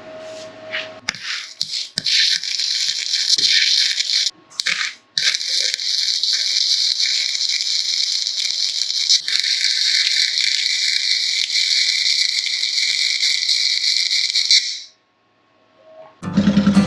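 Electric welder laying a bead to weld a nut onto a snapped transmission output shaft: a steady crackling hiss that starts about a second in, breaks off briefly twice around four and five seconds, and stops shortly before the end. Just before the end a loud, low, evenly pulsing sound starts.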